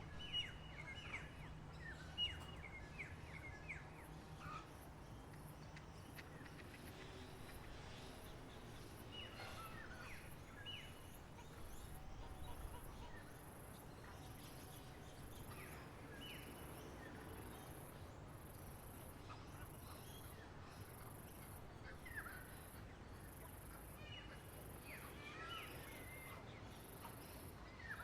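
Birds chirping in scattered bursts of quick high notes, with quiet gaps between, over a faint steady low hum. A faint high pulsing repeats about once a second through the later part.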